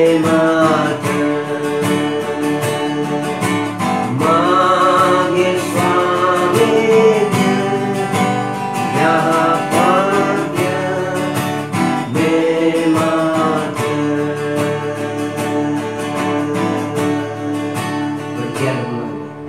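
A man singing while strumming an acoustic guitar in a steady rhythm. His voice drops out near the end as the guitar fades.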